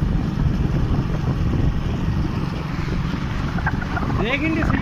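Wind rumbling heavily on the microphone of a moving two-wheeler. Near the end, a person's voice calls out briefly.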